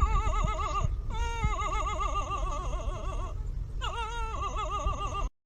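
A pet animal giving long, drawn-out warbling cries whose pitch wobbles quickly up and down, three in a row with short breaks between, cut off suddenly near the end.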